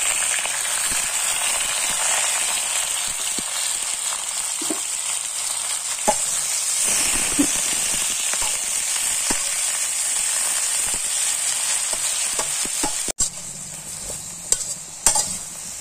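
Pak choy and shrimp stir-frying in a hot wok: a steady sizzle of oil, with occasional light scrapes and taps of a metal utensil against the pan. The sizzle drops sharply about thirteen seconds in, after which a few clinks of the utensil stand out.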